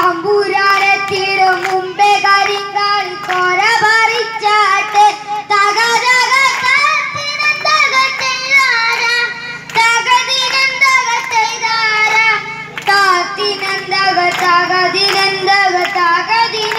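Voices singing a Malayalam folk song (nadanpattu) over a steady beat of sharp percussive strokes.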